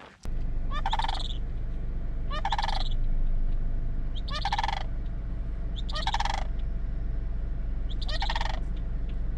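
Sandhill cranes calling: five rolling, rattling calls, one every second and a half to two seconds, over a steady low rumble.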